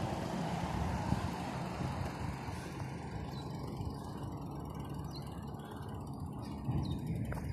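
Road traffic on a two-lane road. A passing car's tyre and engine noise fades away over the first few seconds, then the noise rises again near the end as another vehicle approaches.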